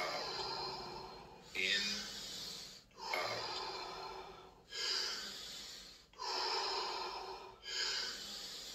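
A man breathing deeply and rapidly through the mouth in Wim Hof breathing: a strong, noisy breath about every second and a half, each starting sharply and fading before the next.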